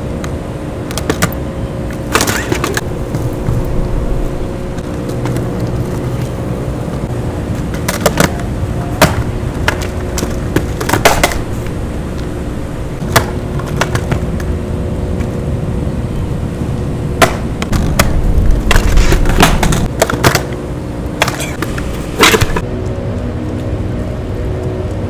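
Skateboard rolling on a concrete sidewalk: a steady rumble from the wheels, broken by many sharp, irregular clacks of the board and wheels against the pavement.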